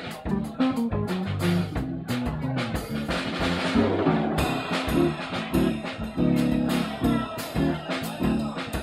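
Live jazz trio of electric guitar, electric bass guitar and drum kit playing a medium-tempo swing tune, with stepping bass notes under the guitar and steady cymbal strokes.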